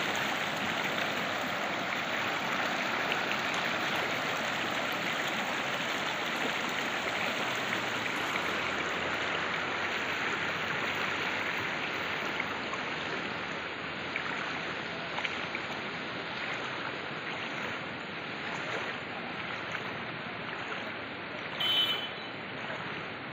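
Fast brown floodwater rushing in a steady, loud noise, easing slightly about halfway through. A brief high tone sounds near the end.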